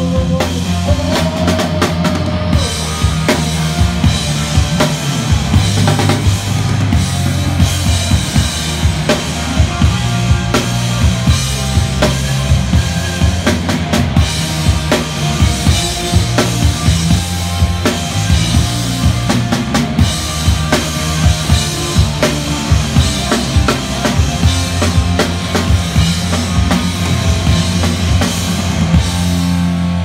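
Rock band playing live, the drum kit loudest: kick drum, snare and cymbals in a driving beat, over a bass line.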